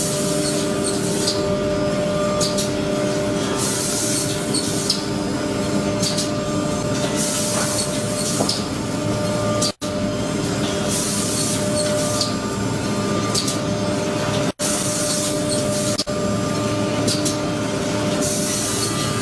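Panel woodworking machinery running with a steady hum, with a hissing sound that rises and falls about every three to four seconds. The sound cuts out briefly twice.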